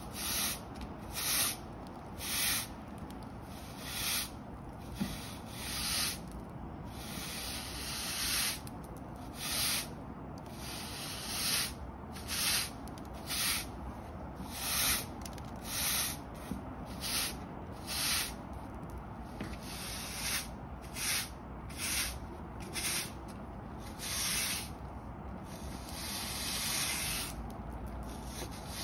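Hard-bristle push broom sweeping dirt across concrete block paving in a series of scratchy strokes, mostly short at about one a second, with a few longer drawn-out strokes.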